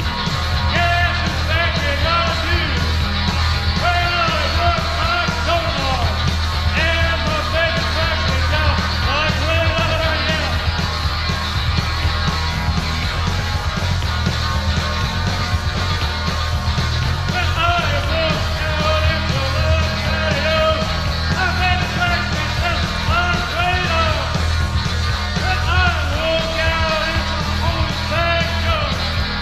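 Live rock and roll band playing: electric guitar, bass and drums keep a steady beat while the singer sings and yells over it, heard through a recording of a live radio broadcast.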